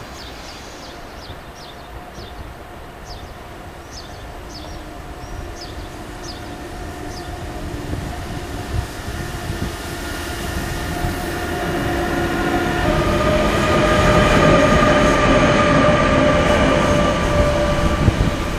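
A single electric locomotive running light approaches and grows steadily louder, with several steady whining tones from its electric traction equipment over a low rumble. A few short high chirps come in the first several seconds.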